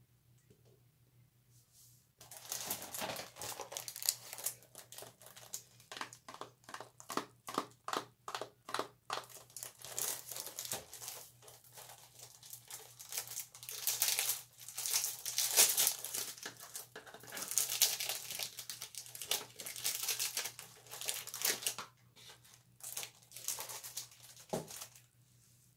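Crinkling and rustling of soap bar wrappers being unwrapped by hand, starting about two seconds in, with a run of quick even strokes and some tearing.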